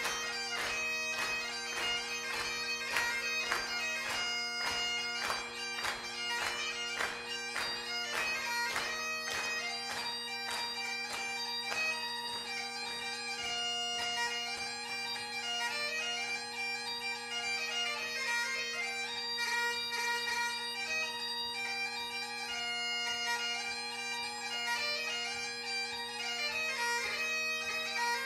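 Mouth-blown bagpipes with three drones played solo: the drones hold one steady note under a chanter tune that runs in quick, clipped, ornamented notes for the first several seconds, then moves into longer, more flowing phrases.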